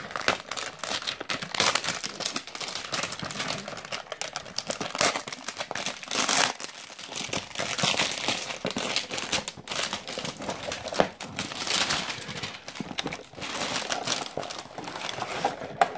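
Cardboard gift box and its clear plastic window and insert being handled and pulled open: irregular crinkling and rustling of packaging, with sharp crackles and scrapes throughout.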